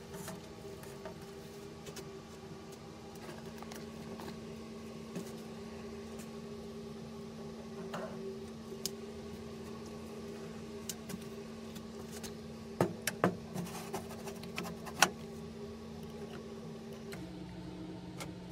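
Small electric motor of a homemade armature lathe humming steadily, its pitch dropping a step near the end. Several light metallic clicks and taps in the second half as the metal fixtures and a dial indicator are handled.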